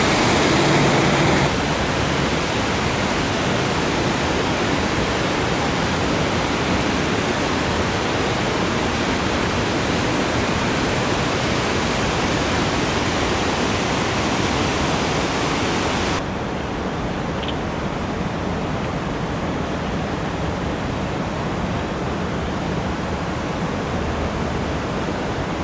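Steady rush of falling water from a pond waterfall, with no distinct events. About two-thirds of the way through it drops a little and turns duller.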